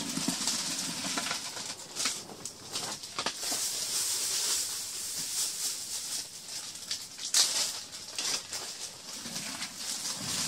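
Plastic bags crinkling and dry cannabis rustling as it is tipped into a plastic bucket, with scattered crackles and light taps.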